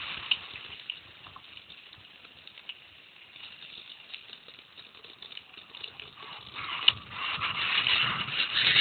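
Mountain bike rolling downhill on a gravel track: tyres crunching over loose stones while the bike and camera mount rattle. It is quieter at first, gives a sharp knock about seven seconds in, then grows louder and denser near the end.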